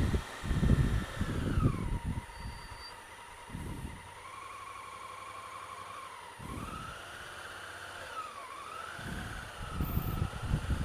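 Honda Africa Twin CRF1000L's parallel-twin engine running at low speed in traffic. Its note drops as the bike slows about two seconds in, then rises and dips with the throttle twice. Gusts of low noise come and go, strongest near the start and the end.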